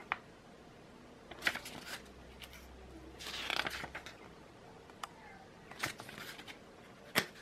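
Pages of a small paper instruction booklet being turned by hand: a short papery rustle and flick about every two seconds.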